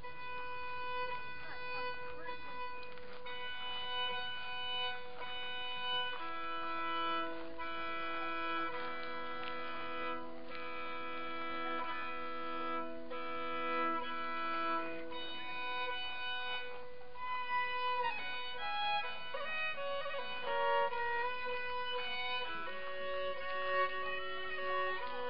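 Solo fiddle playing a lively folk dance tune, often sounding two or more notes together under the melody.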